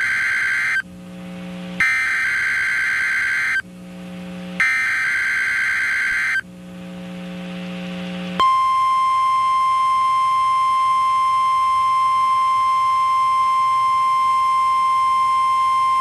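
NOAA Weather Radio EAS/SAME test signal. The tail of one header burst and two more full bursts of rapid two-tone data chirping, each under two seconds, are separated by a low hum. A little over halfway in, the steady single-pitch 1050 Hz weather radio warning alarm tone begins and holds.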